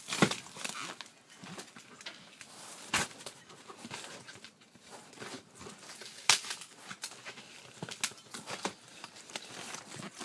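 Cardboard boxes and packaging handled during an unboxing: irregular clicks, taps, scrapes and crinkles, with a few sharp snaps about three and six seconds in.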